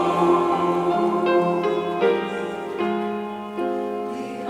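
Piano playing a short instrumental interlude of held chords that change about once a second, between the choir's sung lines.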